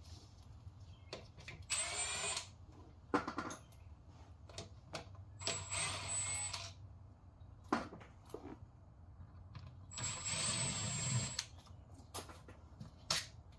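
Cordless power tool running in three short bursts of about a second each, spinning out the T40 bolts that still hold the transmission pan, with sharp metallic clicks and clinks between the bursts.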